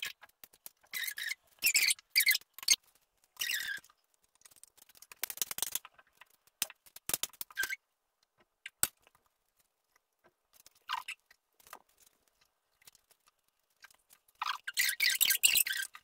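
Spoons scraping a metal bowl and spreading ricotta-and-meat filling onto fresh lasagne sheets, heard as short scratchy scrapes in clusters with pauses, a sharp click about nine seconds in, and a busier run of scraping near the end.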